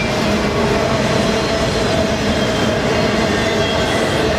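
Autorack freight cars rolling past at speed: a steady rumble of steel wheels on rail, with a faint steady whine riding over it.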